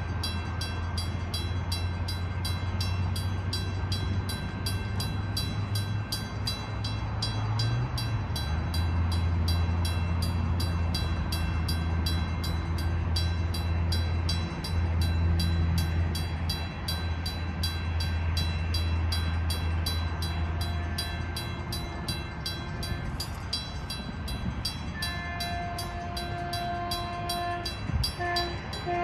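Grade-crossing warning bell ringing in an even, rapid rhythm over a low steady drone that fades out about 21 seconds in. About 25 seconds in, a train horn begins to sound, a chord of several notes held with a short break near the end.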